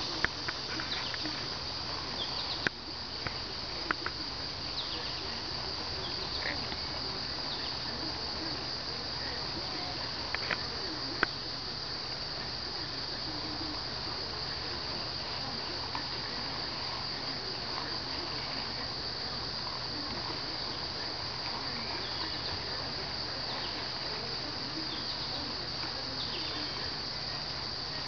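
Steady, high-pitched chirring of insects, with a few sharp clicks in the first dozen seconds.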